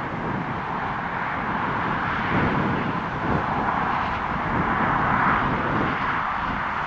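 Jet airliner's twin engines at takeoff power during the takeoff roll, heard from a distance as a steady rushing roar with a rough low rumble. It swells slightly about four to five seconds in.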